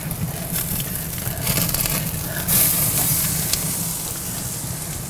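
Ribeye steak sizzling on a hot cast iron grate over live charcoal flames as it is turned with tongs. The sizzle swells loudest about halfway through.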